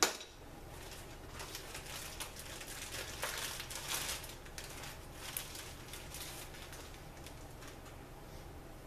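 A sharp clink as a metal transmission part is set down on a steel workbench at the very start. Then faint rustling and light knocks of parts being handled and hands wiped on a cloth, which die away after about six seconds. A steady low hum runs underneath.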